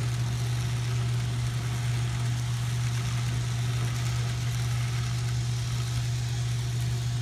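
N scale passenger train running past: a steady low hum with an even hiss over it as the cars roll along the track.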